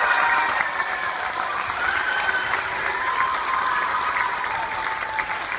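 Audience applauding at the end of a dance number, with voices calling out over the clapping; it is loudest at the start, then holds steady.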